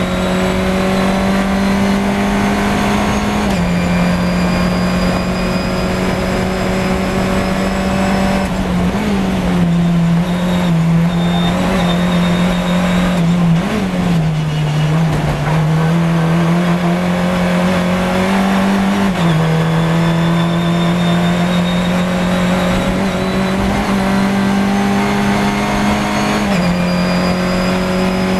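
FunCup Beetle-bodied race car's engine heard loud from inside the car at racing speed, its pitch climbing steadily and dropping at several upshifts, including a few seconds in, about two-thirds of the way through and near the end. Through a slower corner in the middle the engine note wavers as the car brakes and gets back on the throttle.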